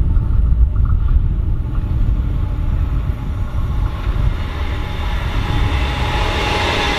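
ICE 3 high-speed train approaching on the line, the rushing noise of its wheels on the rails building steadily over the last few seconds, over a steady low rumble.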